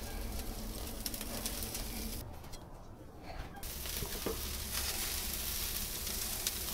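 Oxtail pieces sizzling as they sear over hot wood coals on a braai grid. The hiss drops out for about a second near the middle, and there are a few faint clicks.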